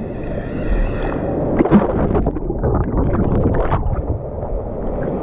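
Rushing water of a wild-river water-park ride heard from a rider-mounted action camera: a steady churning rumble with wind-like buffeting on the microphone, and a burst of splashing from about a second and a half in to about four seconds.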